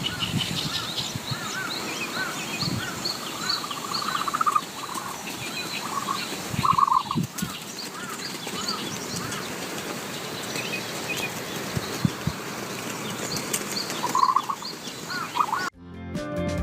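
A group of young poultry peeping and chirping, many short calls overlapping, with a few louder calls now and then. The calls cut off suddenly near the end.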